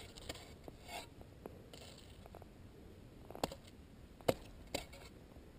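Footsteps on packed snow, with a handful of sharp clicks in the second half.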